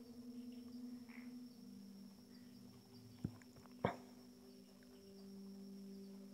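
Night insects, most likely crickets, keep up a steady high-pitched chirr. A low steady hum sits underneath. Two sharp clicks come about half a second apart near the middle and are the loudest sounds.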